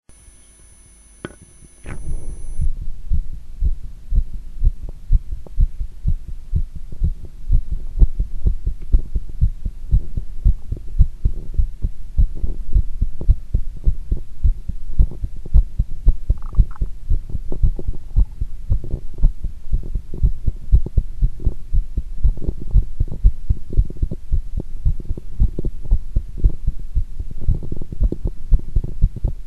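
Human heartbeat, picked up close to the chest while squatting: a steady, even rhythm of low lub-dub thumps. It starts about two seconds in, after a couple of sharp clicks.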